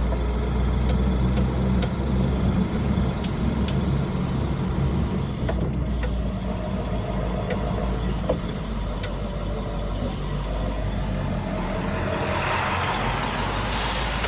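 Steady low engine hum and road noise of a vehicle on the move, heard from inside its cab, with a few light ticks; a hiss swells over the last couple of seconds.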